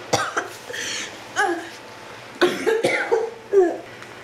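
A woman coughing in a series of short, rough bursts, about six times: the staged coughing of a wounded victim on the floor.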